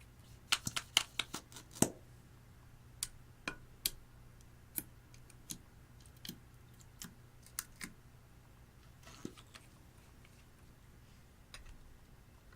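Sharp clicks and taps of small hard objects: a quick flurry in the first two seconds, then single clicks every half second to a second.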